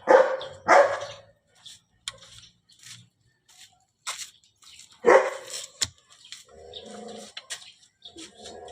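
A dog barking: two barks right at the start and another about five seconds in, with sharp clicks in between.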